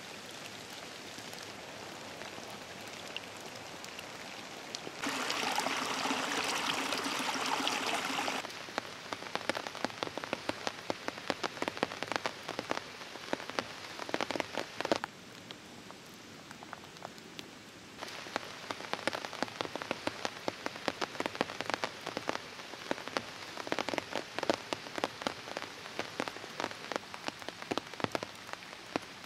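Rain falling on a forest floor and puddle, a steady hiss with many separate drops ticking close by. About five seconds in a louder, denser stretch of rain lasts a few seconds, and the level shifts again at later cuts.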